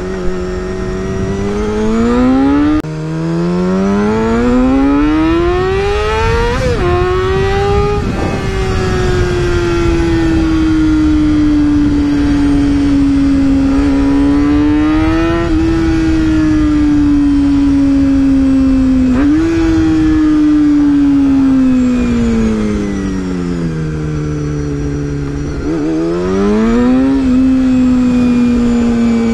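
Honda CBR250RR's high-revving 249 cc inline-four engine under way through the gears: its note climbs steeply for several seconds, eases off, jumps up briefly twice, drops low, then climbs again. A steady rush of wind lies under it.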